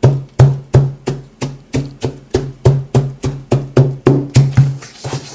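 Background music with a steady plucked or percussive beat of about three notes a second, each with a low pitched note, stopping just before the end.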